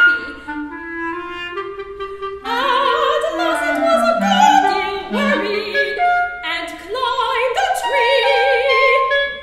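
A woman sings in classical operatic style with clarinet, a live voice-and-clarinet duo. The clarinet line is plain at first, and the voice comes in louder with wide vibrato about two and a half seconds in.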